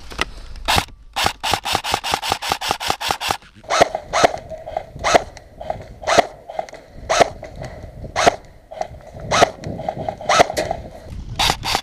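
Airsoft rifle firing. A rapid burst runs for about two seconds, then comes a string of single shots about one every half second to a second, and another quick burst near the end.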